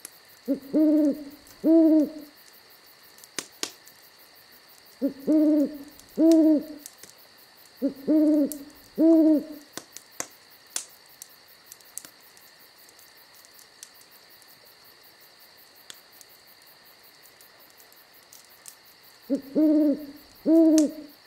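Burrowing owl giving a low two-note hoot four times, with long pauses between the calls. A few faint clicks fall in the gaps.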